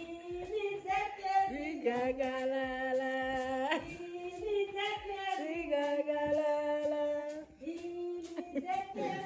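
Several women singing together in harmony, holding long notes, with short breaks between phrases about four seconds in and again near the end.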